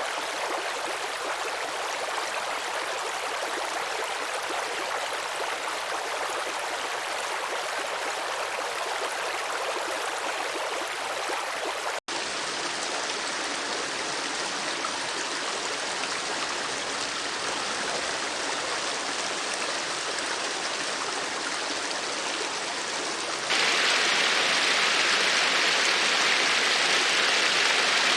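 Stream water flowing and splashing over rocks in a steady rush. It cuts abruptly about twelve seconds in to another stretch of running water, and near the end jumps to a louder, brighter, hissier rush.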